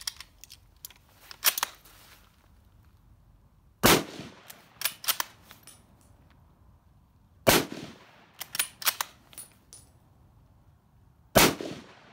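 M1917 Enfield bolt-action rifle firing three .30-06 shots, about four seconds apart. Between shots there are quick metallic clacks of the bolt being worked to eject the case and chamber the next round.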